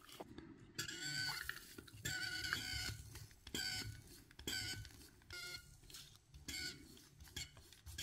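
The hand pump of a WACACO Minipresso NS portable espresso maker being pumped, each stroke giving a short, squeaky, sputtering spurt about once a second as hot water is forced through the coffee capsule and espresso comes out into the cup.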